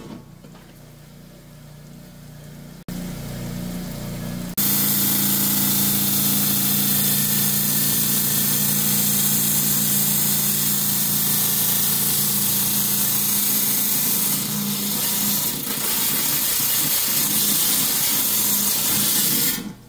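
Lapidary band saw with a diamond blade running and cutting through a small red stone slab: a steady motor hum with a grinding hiss, starting about four and a half seconds in and stopping just before the end. The first few seconds are much quieter machine sound.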